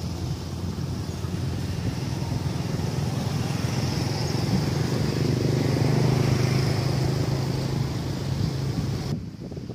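A motor vehicle engine running nearby, a steady low hum that swells toward the middle, then cuts out abruptly near the end.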